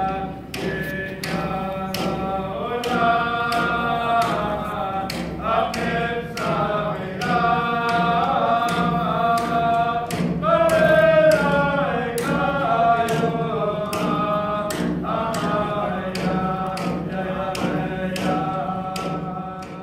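Alaska Native drum song: a group of voices singing in unison over steady beats of a hand-held frame drum. It fades out near the end.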